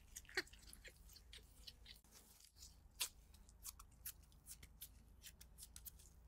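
Faint, irregular crinkling and ticking of disposable plastic gloves as gloved hands press and flatten a ball of mashed-potato dough in the palm, with sharper ticks about half a second in and about three seconds in.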